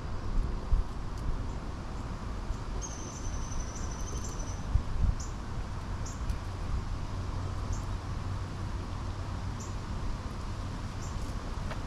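Outdoor ambience: a steady low rumble, with a thin high note held for about two seconds starting about three seconds in, then short high chirps every second or two.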